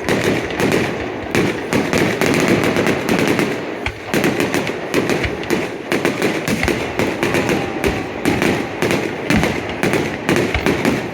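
Fireworks display: a dense, unbroken barrage of rapid crackling bangs, with a few deeper booms among them.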